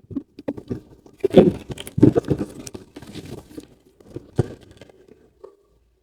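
Packaging being handled and pulled open: irregular crinkling, rustling and sharp clicks of cardboard and plastic wrapping, loudest in the first half.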